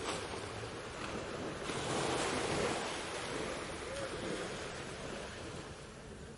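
Ocean waves washing onto a beach. One wave surges up about two seconds in and then slowly draws back.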